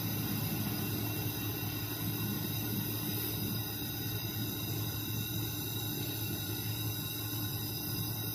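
Steady machine hum with a constant low tone and a faint high hiss, from a robotic laser welding cell running while the welding head works along a steel block.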